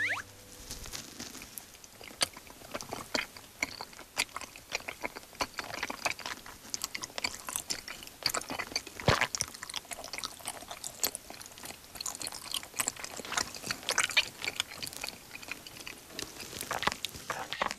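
Close-miked ASMR chewing of chewy Korean rice cakes (tteok) coated in thick tteokbokki sauce: irregular wet, sticky mouth clicks and squishes, with a sharper click about nine seconds in. The sticky, squelching sound was likened to a frog.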